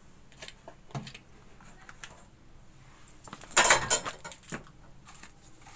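Light clinks and knocks of a stainless steel bowl being handled, with a louder clatter of several quick metallic strikes about three and a half seconds in.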